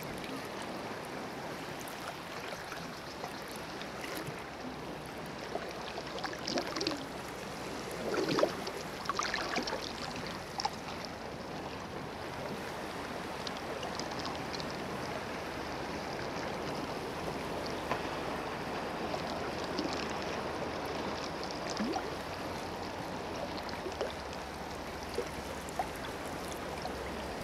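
Flowing water like a running stream, an even rushing noise, with a few brief louder sounds standing out about a third of the way in.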